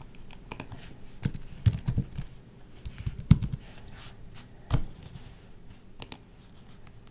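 Typing on a Microsoft Wedge Bluetooth keyboard: irregular key clicks, with a few heavier keystrokes standing out about two, three and a half, and five seconds in.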